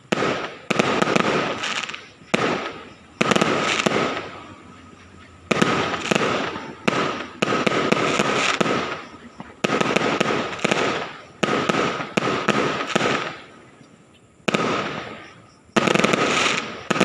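Aerial fireworks bursting one after another, about a dozen in all, every second or so. Each is a sharp bang followed by a fading rumble and crackle.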